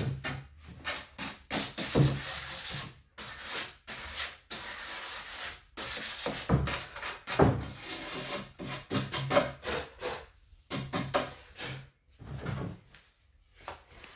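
Sandpaper rubbed by hand over a plywood workbench top in irregular scraping strokes, with short pauses between runs and a longer pause near the end.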